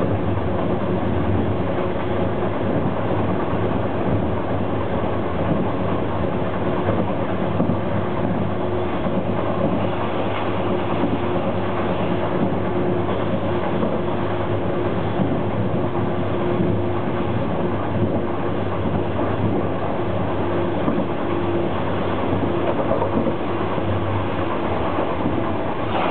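Alstom Lint 41 diesel railcar running at speed, heard inside the driver's cab: a steady hum from the underfloor engine and transmission mixed with the rumble of the wheels on the rails.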